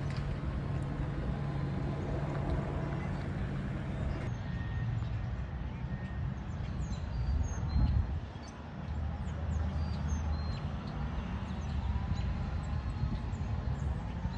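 A pickup truck's engine running as it drives past for the first few seconds. Then comes a steady outdoor rumble with scattered short, high bird chirps.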